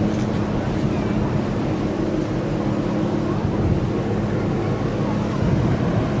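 Steady low drone of a marine engine, with water wash and wind buffeting the microphone.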